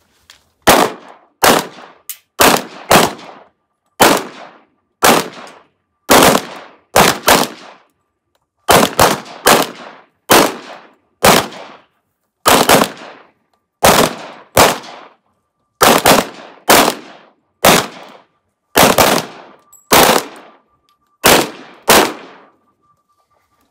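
Pistol shots from several shooters on a firing line, a long irregular string of about thirty shots, one or two a second, each with a short ringing echo.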